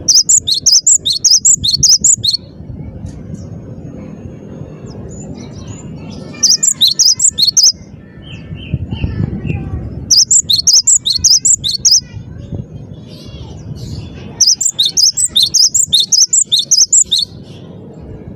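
Cinereous tit (gelatik batu) singing in full voice: four bursts of rapid, high, repeated notes, each lasting about one and a half to two and a half seconds, with pauses between them. A low background rumble runs underneath.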